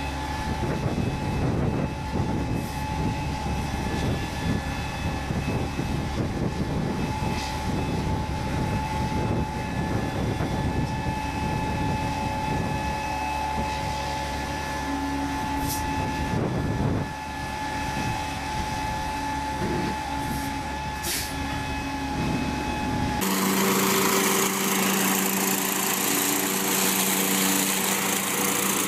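Diesel truck running steadily with a steady high whine and a deep rumble while its high-lift sugarcane bin tips. About 23 s in it gives way abruptly to a louder lawn tractor and leaf vacuum running, with engine hum and rushing air.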